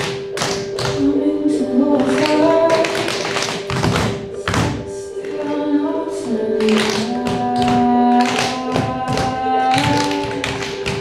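Tap shoes striking a stage floor in quick, uneven runs of clicks from several dancers at once, over recorded music with a sung melody.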